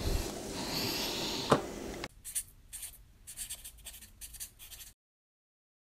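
Light handling noise with one sharp tap about a second and a half in, then, after an abrupt cut, a pen scratching on paper in quick short strokes as a signature is written, stopping dead about five seconds in.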